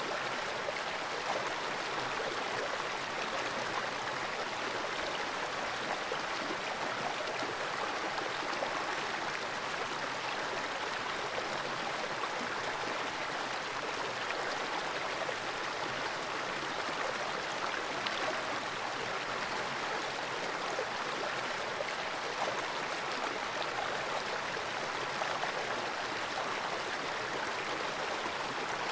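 Fast-flowing creek water rushing over rocks: a steady, even rush with no breaks.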